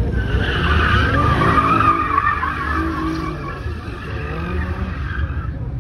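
Car tires squealing in a long, wavering screech as the car slides through its own tire smoke, over a low engine rumble. The squeal fades out about five and a half seconds in.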